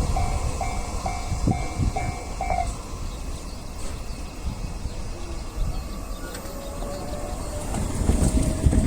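Japanese level-crossing warning bell dinging about twice a second over the rumble of a freight train's wagons rolling past; the bell stops about two and a half seconds in while the wagons keep rolling by, louder again near the end.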